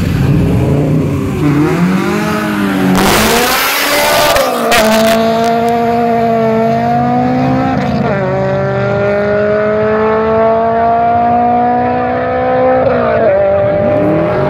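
Two cars, a Chevrolet Camaro and a Honda Civic hatchback, revving at the start line and then launching in a drag race. A loud burst of tyre and engine noise comes about three seconds in. Then the engine pitch climbs in steps through gear changes at about five, eight and thirteen seconds as they pull away.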